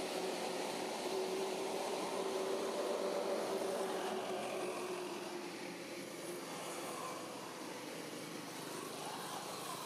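A distant engine drone, a steady hum that is strongest in the first few seconds and fades away about halfway through, over a steady outdoor background noise.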